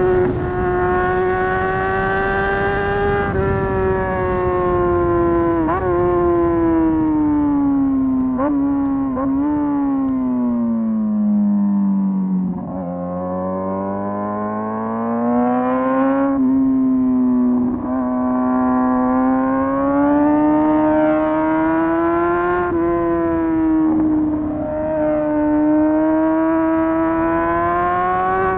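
Motorcycle engine running continuously, its pitch slowly rising and falling with the revs and dipping lowest about halfway through, with a few brief sharp breaks in the note.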